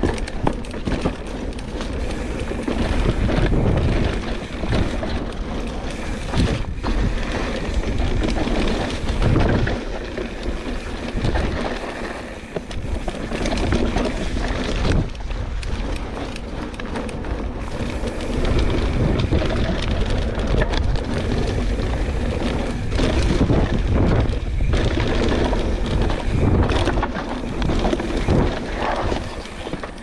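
Pivot Switchblade mountain bike ridden fast down a dirt trail: a continuous rumble of tyres on dirt, broken by frequent knocks and rattles over bumps, with wind buffeting the microphone.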